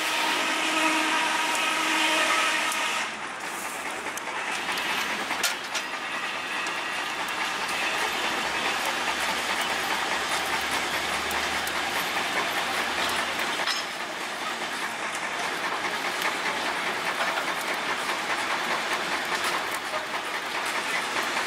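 Coal forge fire burning under an air blast: a steady rushing hiss with constant small crackles as the coal catches and flames flare. A humming tone sounds over it and stops about three seconds in.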